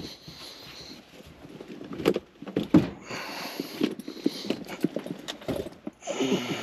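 Irregular footsteps and knocks on wooden attic decking, with the loudest knocks between two and three seconds in.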